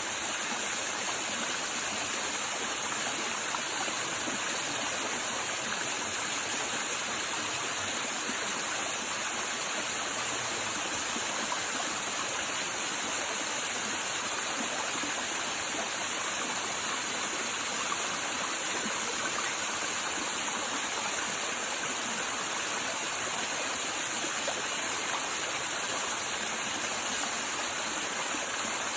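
Waterfall, water pouring and splashing in a steady rush.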